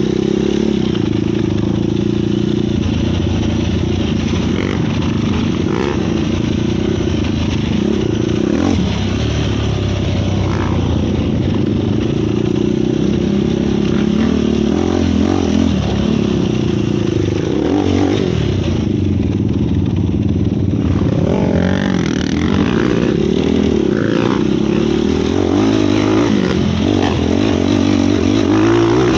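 Yamaha YFZ450 sport quad's single-cylinder four-stroke engine running loud while being ridden, revving up and down in pitch as the throttle is worked, briefly backing off about two-thirds of the way through.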